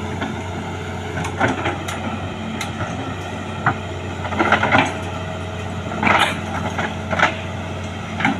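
Hitachi 210F excavator's diesel engine running steadily, with irregular sharp metallic clanks and knocks over it, a cluster of them about four to five seconds in and a louder one about six seconds in.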